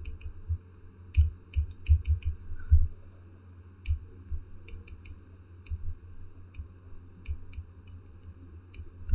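Stylus tapping and clicking on a drawing tablet during handwriting: about twenty light, irregular clicks, thickest in the first three seconds.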